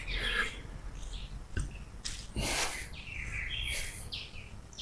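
Small birds chirping in short, scattered calls, with a sharp click about a second and a half in.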